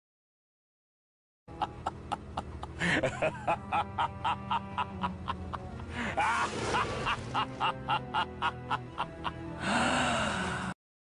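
A short music clip with a steady clicking beat of about three beats a second over held tones, starting about a second and a half in and cutting off suddenly near the end.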